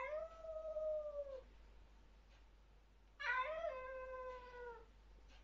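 A cat giving two long drawn-out warning yowls, each dropping in pitch at its end, with a pause of nearly two seconds between them: one cat telling another to keep away in a face-off.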